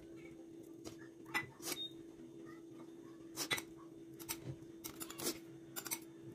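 Spoon and dishes clinking: about a dozen short, sharp taps as a spoon scrapes chili paste from a bowl onto a ceramic plate of fish and mushrooms, with a steady low hum underneath.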